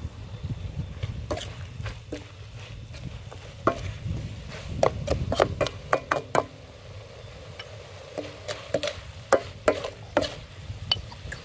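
Metal ladle stirring stir-fry in a large metal wok: irregular sharp clinks and scrapes of the ladle against the pan, in clusters, with the loudest strikes about five seconds in and again near the end.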